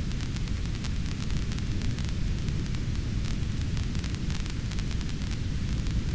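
Fireplace fire crackling: a steady low rumble of burning with many small, sharp crackles and pops scattered through it.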